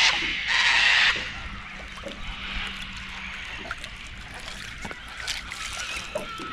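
Water splashing and sloshing in two short loud bursts at the start, then quieter lapping water.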